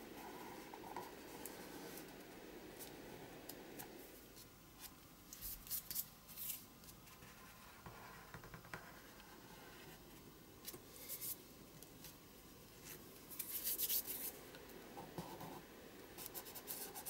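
Fingers rubbing and pressing a freshly glued paper cutout flat onto a journal page: faint papery rubbing, with short scratchy bursts about five to six seconds in and again around thirteen to fourteen seconds.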